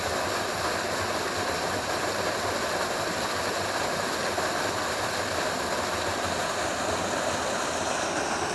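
Waterfall and its stream rushing steadily, an unbroken wash of falling water.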